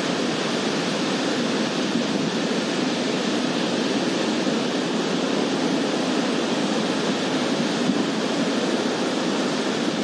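Ocean surf breaking on a beach: a steady, even wash of waves with no single crash standing out.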